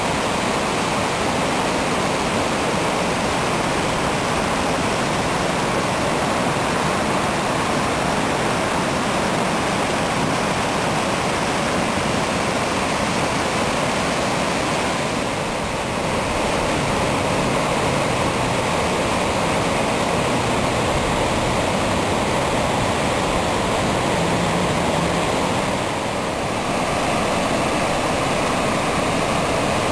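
Waterfall's steady rushing water, with two brief dips in level.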